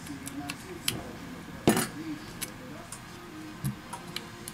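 Small sharp clicks and snaps of a smartphone's board and plastic housing being pressed into place by hand, about eight in all, the loudest snap about two seconds in.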